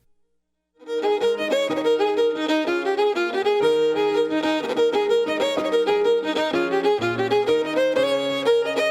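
A brisk Irish instrumental tune led by fiddle begins a little under a second in, after a moment of silence. It is a quick run of notes over a lower accompaniment.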